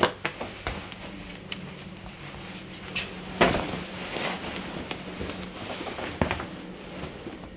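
Clothing being handled and put on: rustling of a heavy embroidered garment with a few sharp knocks and clicks, the loudest about halfway through. A low steady hum runs underneath.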